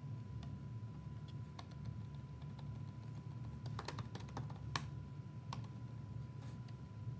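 Computer keyboard typing: scattered keystrokes, with a quick run of them about four seconds in, over a low steady hum.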